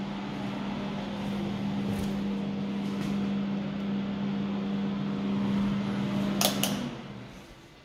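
Steady machine hum with a low drone, growing slowly louder, then dying away about seven seconds in, just after two sharp clicks.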